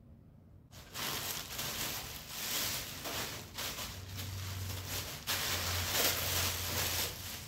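Clear plastic packaging crinkling and rustling as it is handled and pulled open, starting about a second in.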